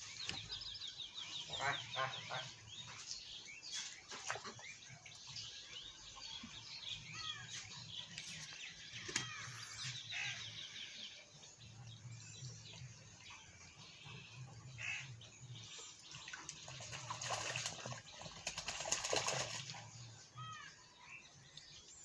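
Domestic ducks calling and quacking on and off, with other small birds chirping, including a rapid high trill near the start and again midway. The calling grows loudest about three-quarters of the way through.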